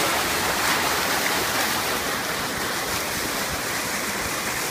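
Water rushing steadily down a water slide, a continuous gushing noise.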